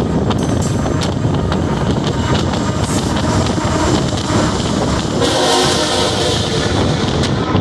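Freight train passing with steady rolling noise and wheel clatter; about five seconds in, a diesel locomotive's air horn sounds for nearly two seconds.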